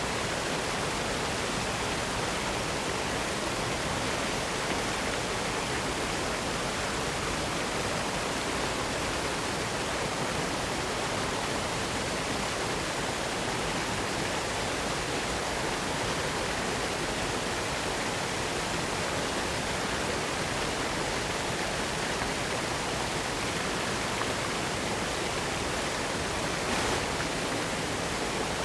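Spring-fed waterfall: a steady, even rush of water falling over rock, with no change in level throughout.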